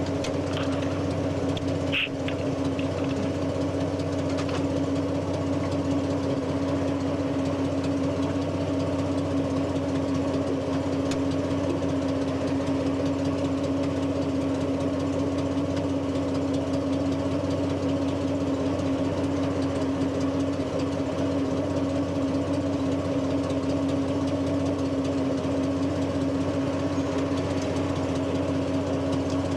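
Daimler Ferret armoured car's Rolls-Royce B60 six-cylinder petrol engine idling steadily, with one short click about two seconds in.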